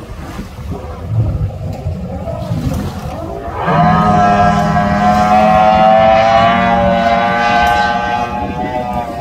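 Bass boat's outboard motor running at high speed: wind and water noise, then about four seconds in, a loud high-pitched engine whine that rises quickly in pitch and then holds steady, easing off slightly near the end.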